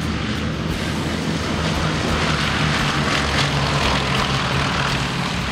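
Boeing B-17G Flying Fortress's four Wright R-1820 Cyclone radial engines at takeoff power, a steady deep drone with a rushing noise that swells in the middle as the bomber lifts off and climbs out.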